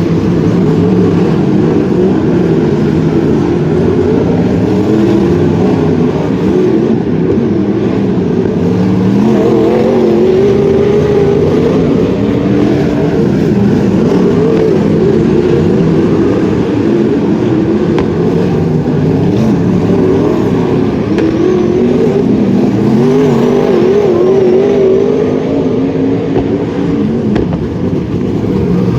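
Wingless sprint cars racing. Several engines are heard at once, their pitch rising and falling continuously as they accelerate and lift.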